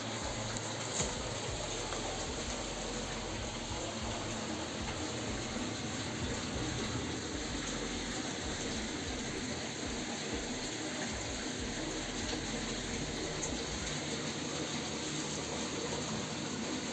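Steady rush of qanat-fed spring water flowing through a stone channel.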